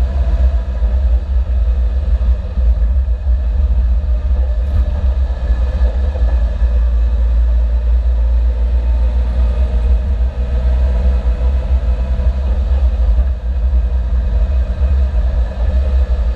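A car under way, with a steady, heavy low rumble of engine and road noise and no distinct events.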